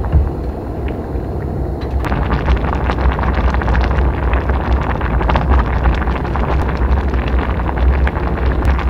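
Wind rumbling on the microphone, with a dense patter of small crackling clicks that sets in about two seconds in.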